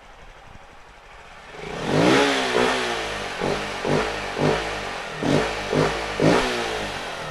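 Honda Bros single-cylinder four-stroke motorcycle engine idling, then revved hard about two seconds in, followed by a string of about six quick throttle blips, each rising and falling in pitch. The air filter box cover has been removed, which makes the intake sound louder and more aggressive.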